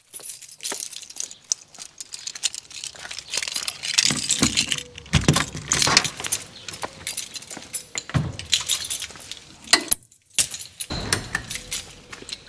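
A bunch of keys jangling in a hand in quick, irregular clinks as someone walks, with a few heavier footfalls among them. The sound breaks off briefly about ten seconds in.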